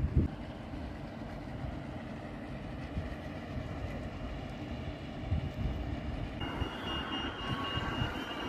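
Steady low rumble of road traffic below, with a sharp bump just after the start. About two-thirds of the way in, a high steady beeping tone from a pedestrian crossing signal starts up.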